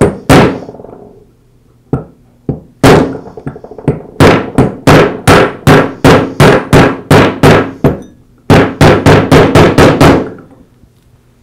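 Rubber mallet striking a socket to drive a new sealed ball bearing into a router's aluminium lower motor housing: a few scattered knocks, then a steady run of about three a second, a short pause, and a quicker run of about five a second that stops shortly before the end.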